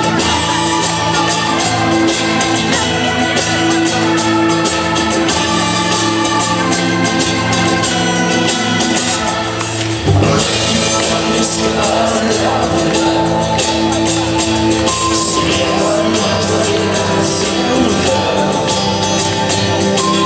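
Live rock band playing an instrumental passage of the song, with long held notes over drums and cymbals. Just before the midpoint the sound thins briefly, then the full band comes back in with a sudden loud hit.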